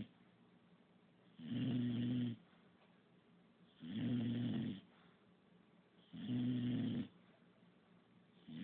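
English bulldog snoring in a steady rhythm: a snore about a second long comes every two seconds or so, three in full and a fourth beginning at the very end.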